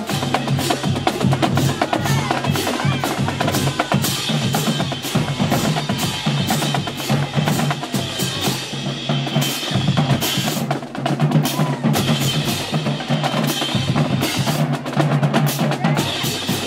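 Marching band drumline playing a fast cadence: snare drums and bass drums in a dense, driving rhythm of sharp strokes.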